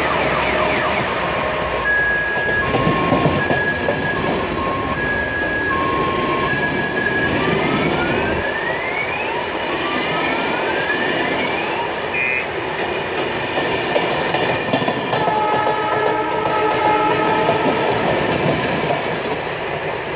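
Passenger coaches rolling along the station track, wheels clattering, with several rising squeals. For a few seconds early on, a two-tone siren alternates between a high and a low note, a little under a second each.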